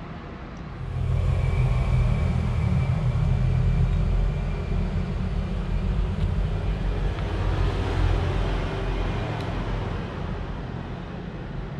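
A motor vehicle engine running close by: a low engine sound that swells about a second in and eases off near the end.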